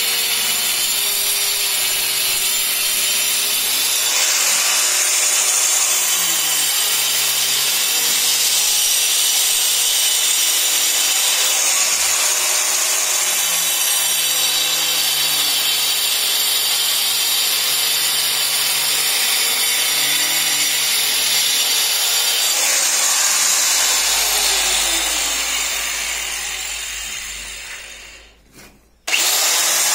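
Handheld electric angle grinder with a cutting disc, running steadily as it cuts a groove into brick and mortar; its pitch shifts as the disc bites. Near the end the motor winds down to a brief pause, then starts up again suddenly.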